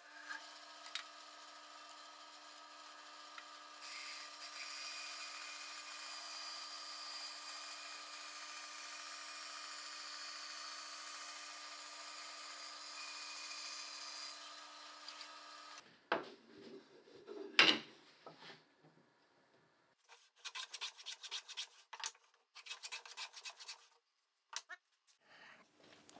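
Bandsaw running steadily and cutting through plywood, a constant machine hum with a hiss from the cut for about ten seconds, until the saw stops. After it come two louder strokes and then runs of short, quick strokes on wood: a hand plane on a shooting board, truing the sawn edges.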